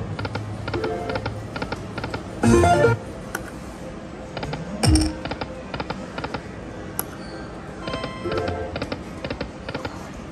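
Aristocrat Lightning Cash High Stakes video slot machine spinning repeatedly, with quick runs of clicks as the reels stop, and short electronic jingles and tones between the spins. A louder chime comes about two and a half seconds in, and a tone falling in pitch comes near five seconds.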